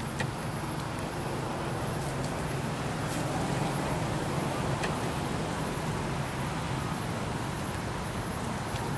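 Steady outdoor background noise with a low rumble, swelling slightly mid-way, and a few faint sharp clicks.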